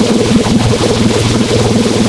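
Loud, heavily distorted, effects-processed music with a fast buzzing pulse and no break.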